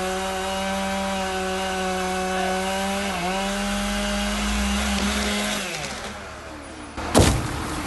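Chainsaw running at a steady high speed while cutting wood, its pitch sagging briefly about three seconds in as it takes load; it dies away about six seconds in. Near the end comes one loud, sudden knock.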